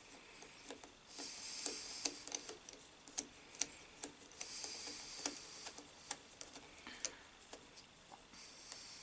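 Irregular small metal clicks and scrapes of a screwdriver tightening terminal screws and nuts in an electric motor's terminal box, with a few stretches of soft rustling.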